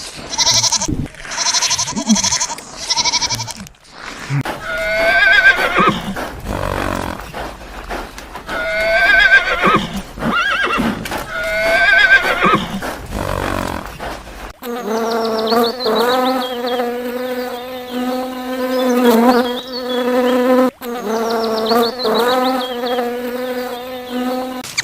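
Animal calls in several edited clips: a few short repeated calls, then three long calls that rise and fall in pitch, then a long steady droning call.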